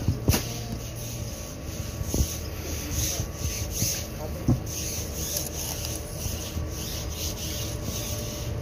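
Golok (machete) blade scraping and rasping as it slices lengthwise along a fresh tuna on a wooden chopping block. A few sharp knocks come from the blade or fish against the block.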